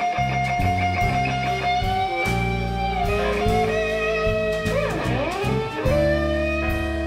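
Live electric blues: an electric guitar lead holds long sustained notes over bass and drums, with a swooping dip and rise in pitch about five seconds in.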